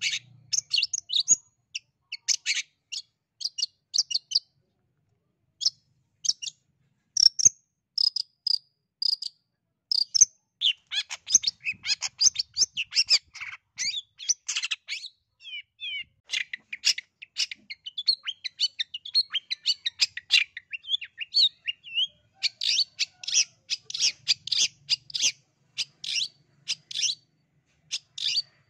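Long-tailed shrike (cendet) singing: a fast run of short, sharp, high chirps and chattering notes, with a brief pause about five seconds in.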